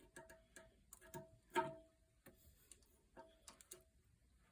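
Light clicks and clinks of a flapper chain's hook being worked onto a toilet's flush lever arm inside the tank, several with a short ring, the loudest knock about a second and a half in.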